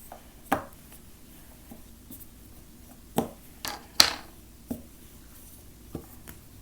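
Plastic Play-Doh tools knocking and rubbing on a tabletop as dough is rolled out: about six sharp taps, the loudest about four seconds in.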